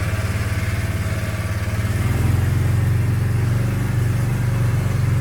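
John Deere Gator utility vehicle's engine running as it drives along, getting a little louder about two seconds in.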